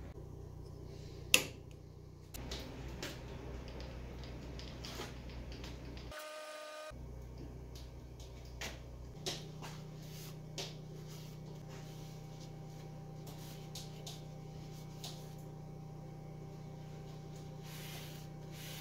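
Quiet workshop room tone with a steady low hum, broken by a sharp click near the start and a few small clicks and knocks as the brake lathe's housing is handled and wiped down with a rag. A short pitched tone sounds about six seconds in.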